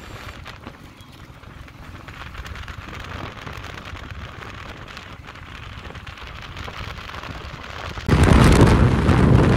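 Wind rushing over the microphone and road noise on a moving motorcycle, building slowly, then a sudden much louder rush of wind about eight seconds in.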